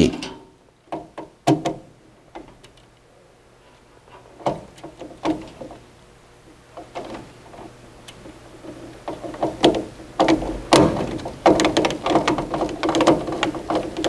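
Screwdriver clicking and scraping against a furnace control board's screw terminal block as wire ends are fastened into it, with hand handling noise. A few isolated clicks at first, then a busier run of clicks and scrapes in the second half.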